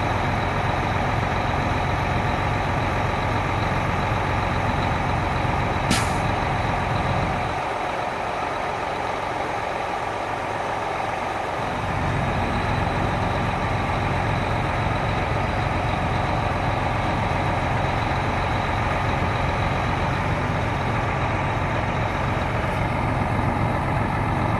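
John Deere 8310R tractor's diesel engine running steadily while its hydraulics move the front dozer blade. There is a sharp click about six seconds in, and the deep rumble drops away for about four seconds soon after.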